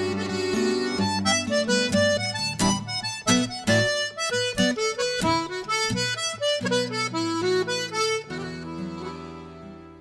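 Button accordion playing a fast Irish traditional tune, a quick run of short notes that settles near the end onto a long held chord that fades.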